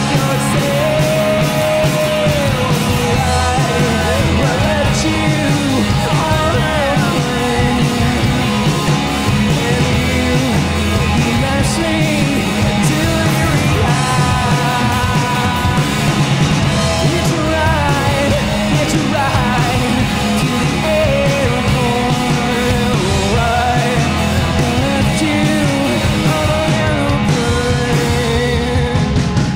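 Rock band playing live: drum kit, electric bass and electric guitar under a male lead singer singing and shouting.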